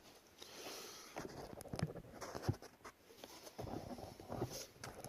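Quiet rustling and scattered small clicks from hands handling small parts: plastic and metal washers being fitted onto a console bracket.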